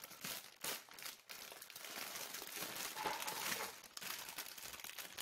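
Plastic packaging crinkling and rustling irregularly as hands dig through a plastic shopping bag and lift out an instant-noodle packet.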